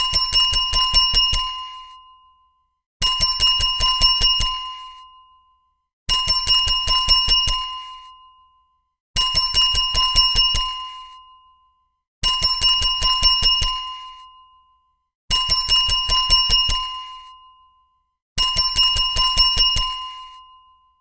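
Hotel reception desk bell ringtone: a bell dinged in quick runs of about eight strikes, each run ringing out and repeating every three seconds, seven times over.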